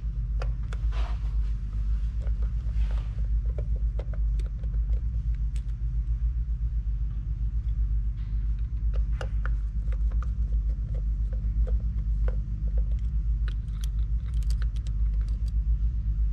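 A steady low rumble, with scattered light clicks and taps as a screwdriver takes out the screws of the original MAP sensor on a Subaru intake manifold.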